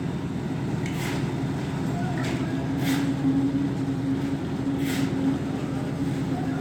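Engine-driven concrete mixer running with a steady drone during a concrete pour, with short rushes of noise every second or two.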